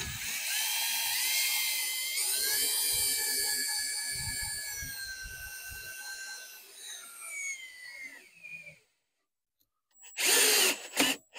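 Cordless drill with a socket winding up a Boss 370 caravan stabiliser leg. The motor whine rises in pitch, then slows and falls before stopping about nine seconds in. A brief loud noise follows about ten seconds in.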